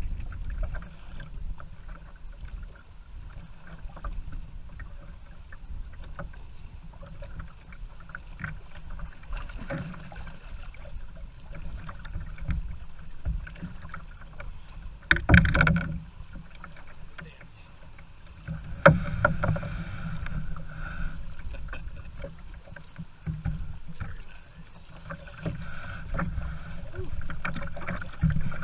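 Choppy water lapping and slapping against a canoe's hull, with wind rumbling on the microphone and scattered small knocks. A louder burst about halfway through and a sharp knock a few seconds later, followed by a short stretch of louder splashing.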